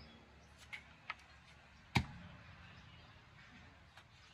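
Plastic engine-oil jug being opened by hand: a few small clicks as the cap and seal are worked, with one sharp knock about two seconds in.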